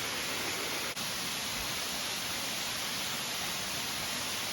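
Waterfall roar: a steady, even rush of falling water, broken only by a very short drop about a second in.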